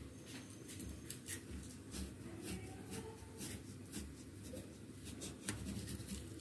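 Kitchen knife slicing lengthwise through a raw peeled potato: faint, crisp cutting sounds with a scatter of small clicks.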